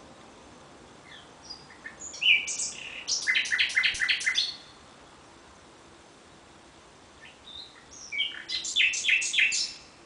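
Common nightingale singing two song phrases, one starting about a second and a half in and the other near the end. Each opens with a few soft, scattered notes and builds into a loud run of rapid repeated notes, about five a second.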